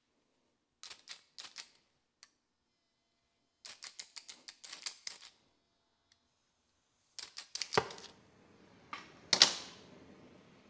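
Flint striker snapped over a gas torch tip in three quick runs of sharp clicks; then gas hisses from the tip, the torch lights with a loud pop about nine seconds in, and the flame burns on with a steady hiss.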